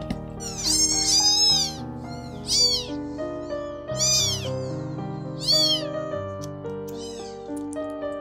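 A hungry three-week-old black kitten meowing loudly at the feeding bottle, about five high-pitched cries, the first one the longest, over background music.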